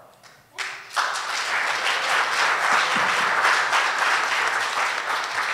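Audience applause that starts about half a second in, quickly builds and then holds steady.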